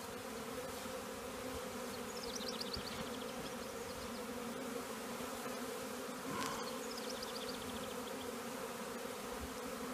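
Steady droning hum of a large honeybee swarm, many bees still in the air around a swarm box after being shaken into it, drawn back to cluster on and enter the box.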